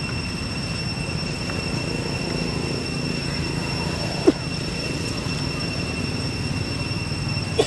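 Steady low rumble with a constant high-pitched whine over it, broken by two short squeaks falling in pitch, one about four seconds in and one at the end.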